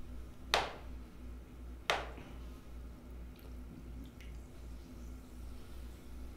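A metal fork dunking a melon chunk in a glass of Sprite, with two sharp wet clinks about a second and a half apart near the start. A steady low pulsing hum runs underneath.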